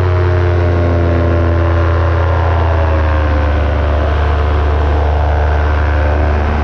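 Paramotor engine and propeller running steadily in flight, a loud drone with a slight dip in pitch about halfway through.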